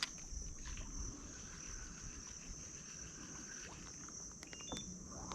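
Steady high-pitched insect chorus, one unbroken buzz, with a low rumble beneath and a few faint clicks near the end.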